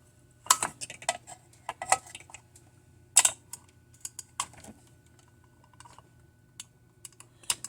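Irregular small clicks and taps of hand tools and small parts being handled on a desk, over a faint steady low hum.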